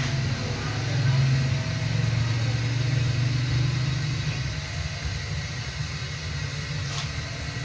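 A steady low rumble, like a running engine, swelling for the first few seconds and easing off after about four seconds, with a faint click near the end.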